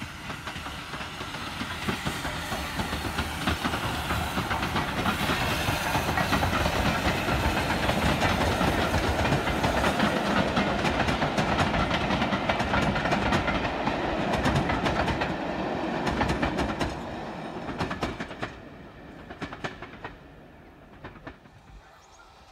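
Swanage Railway passenger train passing, its wheels clattering over the rail joints. It grows louder over the first few seconds, then fades away about three-quarters of the way in, with a few last clacks.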